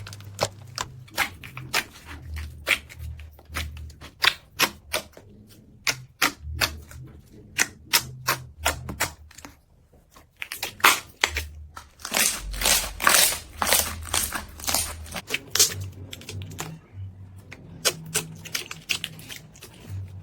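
Slime being squeezed and poked by hand, giving many sharp, irregular pops and clicks as air pockets burst. The pops pause briefly about halfway, then come thicker and louder for a few seconds.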